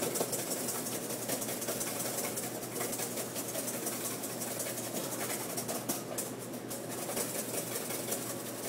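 Wire whisk beating egg yolks in a stainless steel bowl set over a simmering bain-marie: a rapid, continuous clicking and scraping of wire on metal as the yolks cook and thicken for hollandaise.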